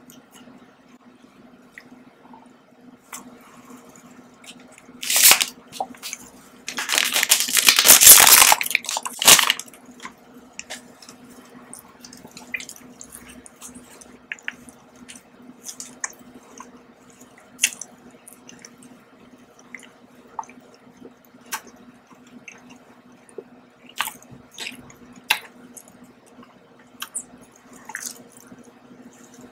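Close-miked eating of chocolate biscuits and snack cakes: scattered crunches, chewing and wet mouth clicks. A loud noisy burst lasting a couple of seconds comes about a quarter of the way in, over a faint steady hum.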